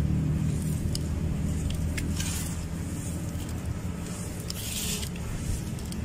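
Crumbly dry sand-cement mix scooped up by hand and dropped back onto the heap: gritty crunching and small ticks of grains, with two louder pours of falling crumbs about two seconds in and again near the five-second mark. A steady low rumble runs underneath.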